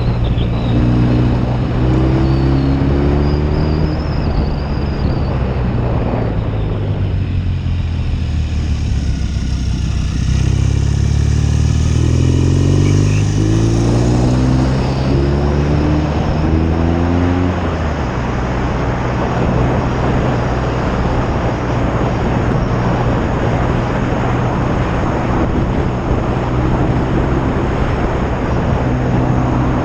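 1972 BSA Lightning's 650 cc parallel-twin engine running on the road, pulling up through the gears with several rising runs of revs in the middle, then holding steady at cruising speed, under a steady rush of wind noise.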